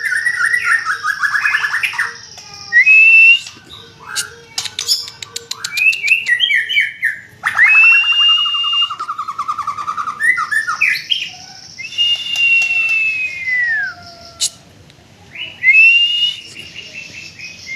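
White-rumped shama of the Medan variety singing: a varied run of loud whistled phrases with gliding notes and fast trills, broken by short pauses and a burst of sharp clicks about four to five seconds in.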